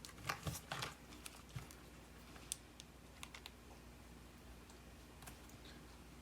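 Scattered light clicks and taps of small things being handled: several in the first second or so, then sparser faint ticks, over a faint steady low hum.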